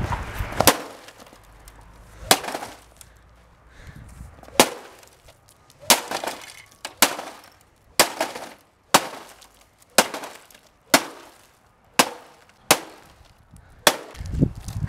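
A garden rake hitting a flat-screen TV over and over, a dozen or so sharp blows with glass and plastic breaking. The blows are a couple of seconds apart at first, then come about once a second.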